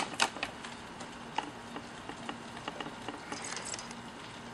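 Light handling noises as a foam model-plane wing and its plastic strut clips are turned over and moved by hand: scattered clicks and taps, two sharper ones at the very start, and a soft rustle a little after three seconds in, over a faint steady hum.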